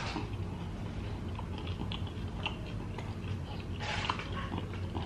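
Close-up biting and chewing of a crunchy deep-fried egg roll: a crisp bite at the start, then scattered crunches and wet mouth sounds, with a longer crunchy stretch about four seconds in.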